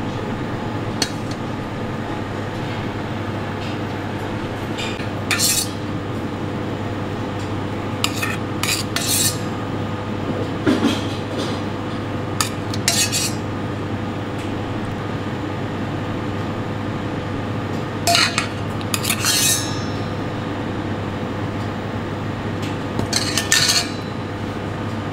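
A metal spoon clinking and scraping against a stainless steel bowl while tomato pieces are spooned out, in short bursts at irregular intervals, over a steady background hum.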